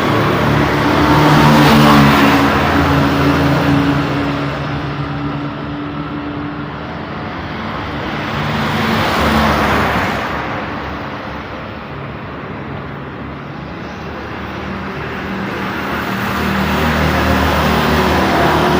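Busy road traffic: vehicles passing one after another, with a heavy engine's low hum in the first few seconds. Another vehicle passes about nine seconds in, the noise eases for a few seconds, then builds again near the end.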